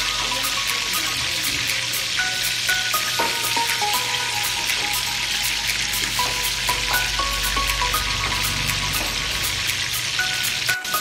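Dark sauce sizzling steadily in a hot steel wok as ketchup is poured in, an even frying hiss.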